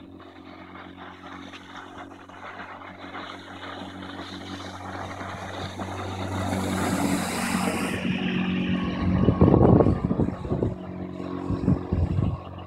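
Johnson 8 hp outboard motor running steadily on a small boat, growing louder over the first several seconds, with a hiss of spray or wind partway through and heavy irregular thumps of wind or water near the end.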